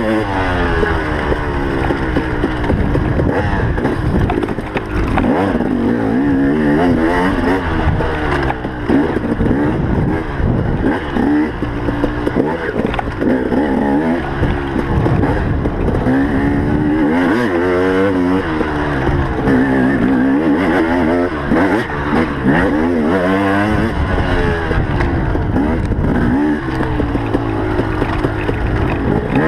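Motocross bike engine at racing speed, revving up and falling off again and again, its pitch climbing and dropping every second or two through the turns and straights.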